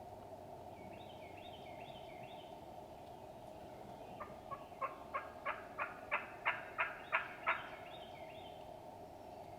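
Turkey calling: a fainter quick run of notes near the start, then a series of about ten evenly spaced yelping notes, about three a second, growing louder, over a steady background noise.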